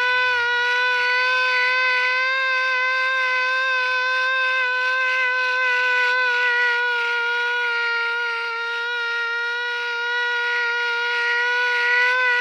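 1943 Federal Electric air raid siren cranked up to speed and wailing at a steady, held pitch with a slight wobble. It dips a little in loudness about two-thirds of the way through, then swells again.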